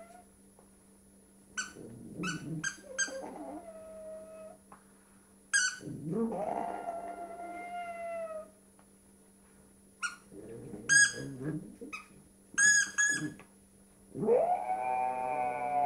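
A pug's drawn-out howling groans mixed with the sharp squeaks of a squeaky dinosaur toy. Quick squeaks come in clusters around 2 s, 5.5 s, 10 to 11 s and 13 s in. Two long howls that rise and then hold come about 6 s in and near the end.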